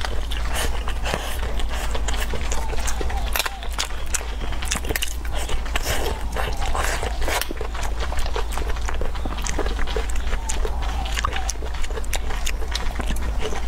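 Close-miked eating: wet chewing and slurping of soft braised eggplant and rice, full of quick, irregular mouth clicks, over a steady low hum.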